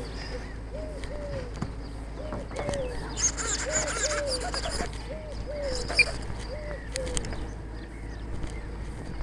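A dove cooing: short low notes in pairs, repeating about every second and a half, with faint small-bird chirps behind it.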